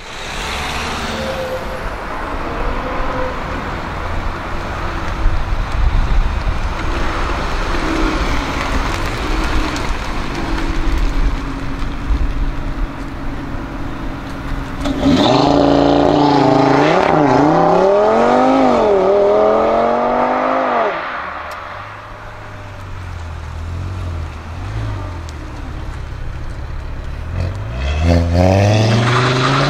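Car engine and road noise, then from about halfway an Audi RS3 Sportback's turbocharged five-cylinder accelerating hard. Its note climbs and drops back several times as it shifts up, then fades. Near the end a Ford Focus RS's engine begins a rising pull as it accelerates away.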